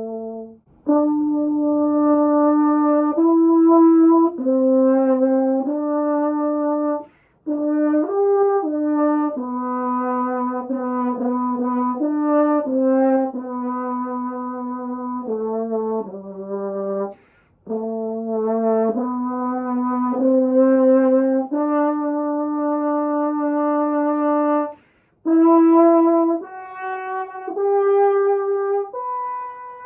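Holton 281 French horn playing a slow melody of held notes in four phrases, with short breath gaps between them, played after emergency repairs.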